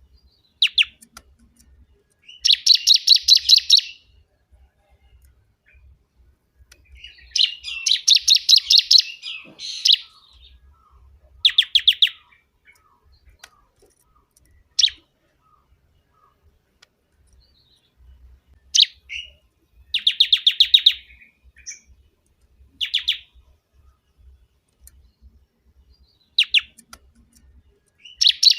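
Bar-winged prinia singing loudly: phrases of rapid, high repeated notes, each lasting a second or two and several seconds apart, with single sharp call notes between them.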